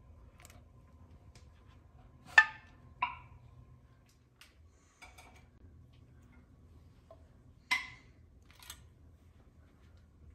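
Metal mason-jar lids popping down as the hot jars cool: sharp metallic pings, two close together about two and a half seconds in and another near eight seconds, with a few fainter clicks between. Each pop is the sign of a jar's lid sealing under vacuum.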